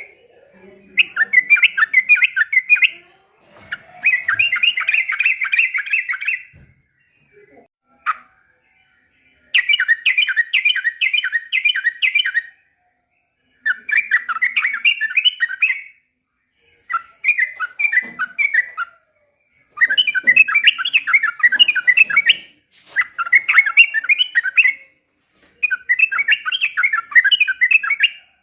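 A yellow-vented bulbul (trucukan) sings about eight phrases of rapid, bubbling notes, each two to three seconds long, with short pauses between them.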